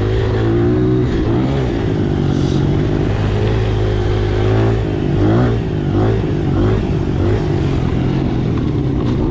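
Dirt bike engine running steadily, with a few quick revs up and down about halfway through.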